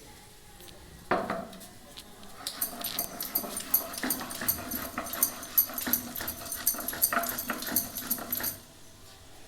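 A dog gives a short whine about a second in, then pants quickly and steadily for about six seconds, stopping abruptly near the end.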